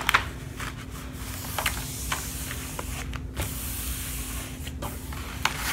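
Rustling and scattered light crackles of a diamond painting canvas and its plastic film being handled and smoothed flat, over a steady hiss and a faint low hum.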